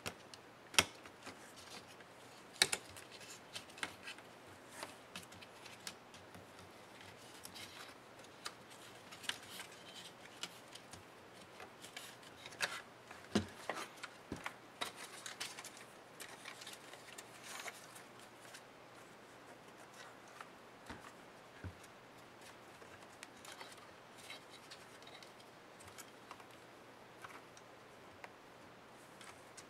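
Small screwdrivers and plastic laptop case parts of a Lenovo ThinkPad E550 being handled and pried apart during disassembly: scattered sharp clicks and taps, the loudest about a second in and near 3 s. A busier run of clicks and scratchy rubbing comes in the middle.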